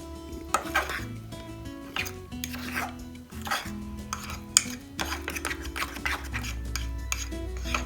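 A metal spoon scraping around the inside of a ceramic mug as cake batter is stirred, in repeated strokes a little under two a second, over background music.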